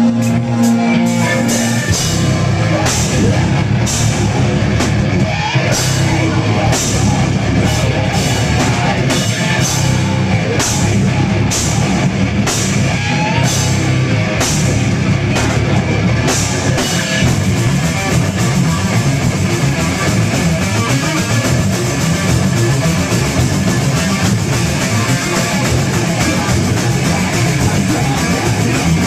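Live rock band playing loud and heavy: electric guitars, bass and drum kit. After a held chord, the full band crashes in about two seconds in, with repeated cymbal hits through the first half.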